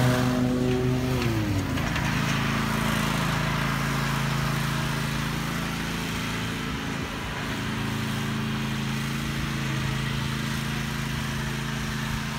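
Zero-turn riding lawn mower's engine running steadily. Its pitch drops about a second and a half in, then holds.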